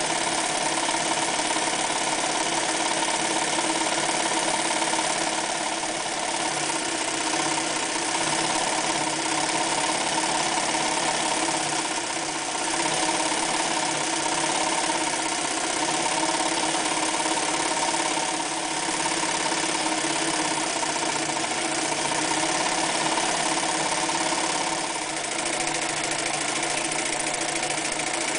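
Singer 316G electric sewing machine running steadily at speed, sewing decorative zigzag and pattern stitches through fabric. The running dips briefly twice, about twelve seconds in and again near the end.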